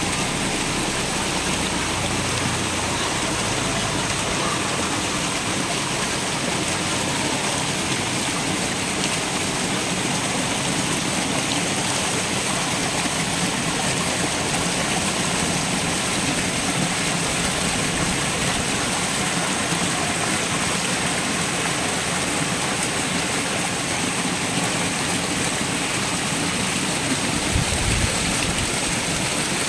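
Water splashing and churning steadily as a tightly packed shoal of red tilapia thrashes at the pond surface in a feeding frenzy. A brief low bump comes near the end.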